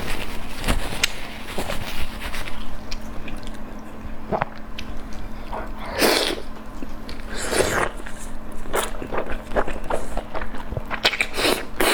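Close-miked eating: a person biting and chewing food, with irregular wet clicks and crackles and a couple of longer, louder bites about halfway through.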